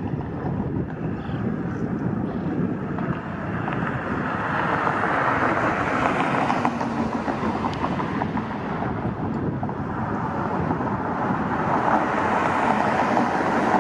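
Outdoor road traffic passing by, a steady rush of tyres and engines that swells twice, with wind blowing on the microphone.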